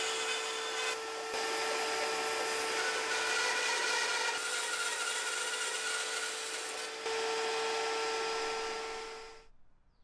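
Bandsaw running and cutting lengthwise through a wooden board, resawing it down toward rough thickness: a steady sawing hiss over a constant motor hum, which stops suddenly near the end.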